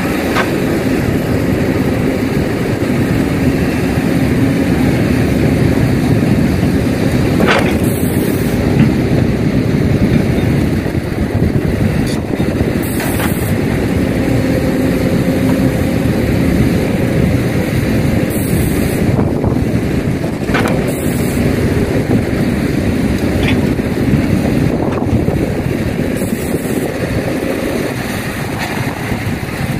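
Diesel engine of a Kobelco excavator running steadily under load while it digs and loads soil into dump trucks, with a few sharp knocks.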